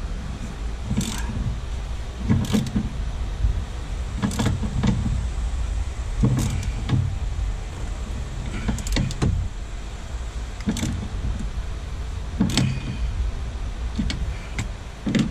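Hand wrench being worked on a seat-mount bolt: short bursts of metal clicks every second or two over a steady low rumble.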